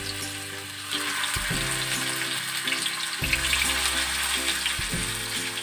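Marinated chicken pieces frying in hot oil in a pan: a steady sizzle with dense crackling that gets busier about a second in. Background music plays underneath.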